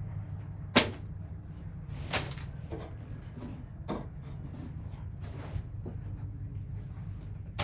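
A few sharp knocks and clunks of hard objects being handled, over a steady low hum.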